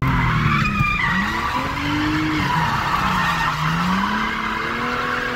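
Drift car heard from inside the cabin, its engine revs rising and falling while the tyres squeal throughout the slide.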